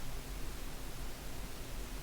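Steady hiss with a low hum underneath: room tone.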